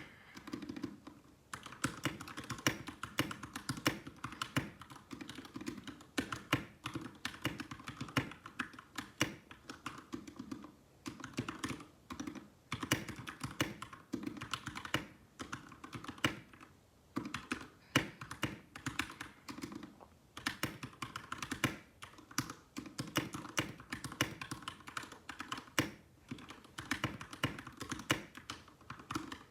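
Typing on a mechanical keyboard whose switches have just been lubed: fast runs of key clacks broken by a few short pauses.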